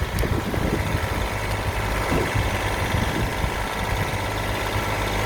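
Tractor engine running steadily while potatoes are being dug.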